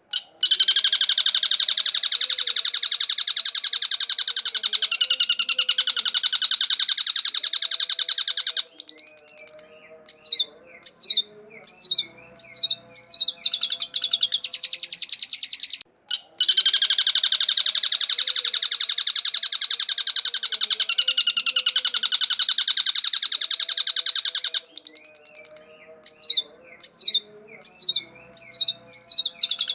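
Long-tailed shrike singing: a long, rapid, dense chatter, then a run of short separate phrases of wavering notes, then chatter again. The same sequence starts over about halfway through, as a looped lure recording.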